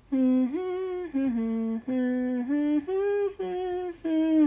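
A person humming a tune: a string of held notes stepping up and down, in short phrases with brief pauses between them.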